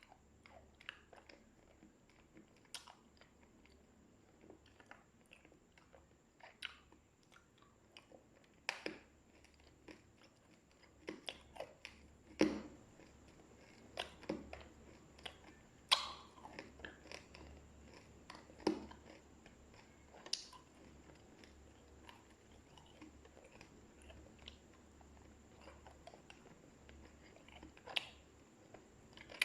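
Candies being bitten and chewed close to the microphone: irregular crisp crunches and smaller chewing clicks, with the loudest bites about twelve, sixteen and nineteen seconds in.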